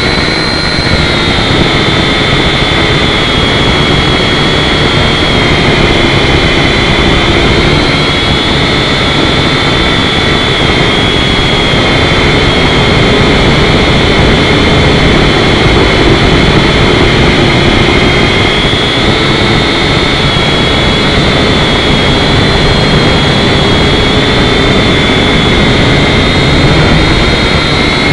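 Swann QuadForce quadcopter's four electric motors and propellers whining steadily, picked up close by the drone's own camera microphone, the pitch wavering slightly as it climbs and holds its hover.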